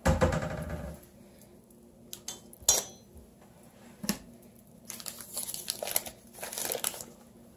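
Kitchen dishes and utensils being handled: a clatter with a brief ring at the start, two sharp clicks, then a couple of seconds of scraping and rustling.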